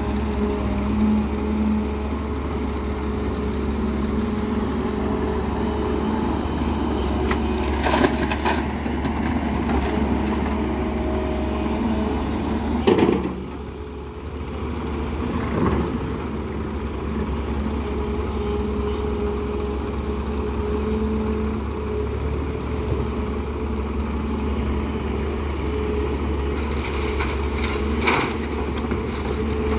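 JCB 205 tracked excavator's diesel engine running steadily under work, with a few knocks and thuds as the bucket digs and dumps soil. The loudest knock comes about halfway through.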